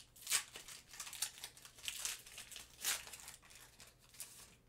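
Foil Pokémon booster pack wrapper crinkling as it is torn open and handled, in a run of short crackly rustles.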